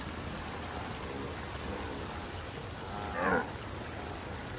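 A wildebeest grunt gives one short call about three seconds in, over steady background noise.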